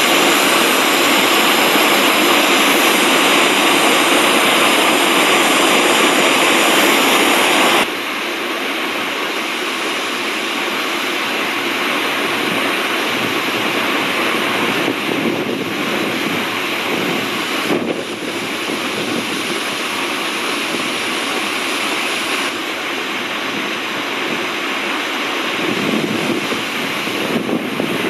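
Steady roar of Iguazu Falls, a loud, even rushing of heavy falling water. It drops somewhat in level and changes character abruptly about eight seconds in, then shifts slightly again a few more times.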